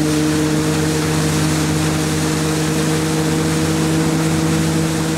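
Motorboat engine running at a steady speed, with water rushing past the hull and wind noise.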